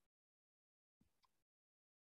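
Near silence: a pause between sentences of a recorded video-call talk.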